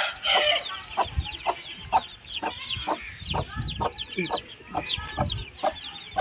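Day-old chicks peeping continuously in quick, short high chirps, several overlapping, with a mother hen clucking low among them.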